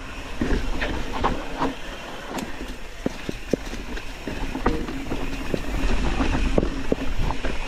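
Mountain bike descending a dirt trail at speed: the tyres rumble over the ground while the bike rattles and clatters with irregular sharp clacks and knocks as it hits bumps.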